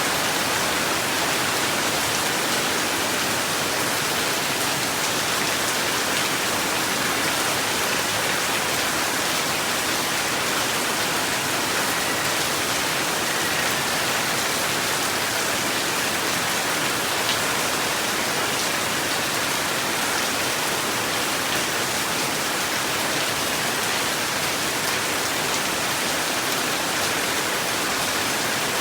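Steady heavy rain falling, an even, unbroken hiss of drops.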